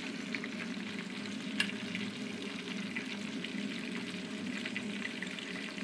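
Potato chips frying in oil in an aluminium pot, a steady sizzle with small crackles, as a metal spoon stirs them. The spoon taps sharply against the pot once, about a second and a half in.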